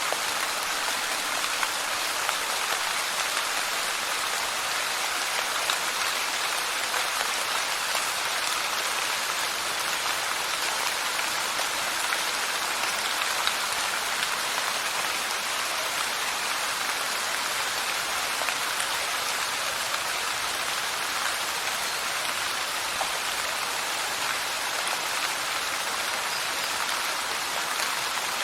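Light rain falling steadily, an even hiss of many small drops with faint scattered ticks.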